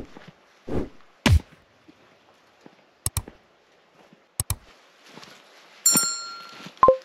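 Footsteps on a dirt trail, then the sound effects of a subscribe-button animation: two sharp double clicks a little over a second apart, followed near the end by a bell-like ding and a short pop.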